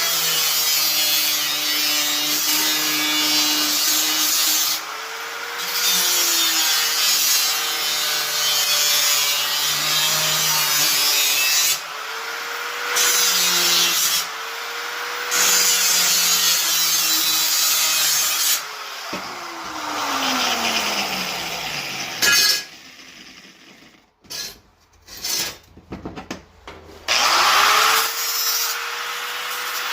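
Handheld power cutting tool slicing through sheet steel: a high-speed motor with a loud hissing cut, its pitch sagging each time it bites and recovering between cuts. About two-thirds through it winds down, gives a few short bursts, and spins back up near the end.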